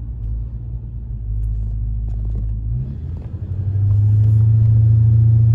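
1986 Chevrolet Monte Carlo SS's 5.0-litre V8 running while the car is driven, a low steady rumble heard from inside the cabin. It grows louder about two-thirds of the way through as it comes under more throttle.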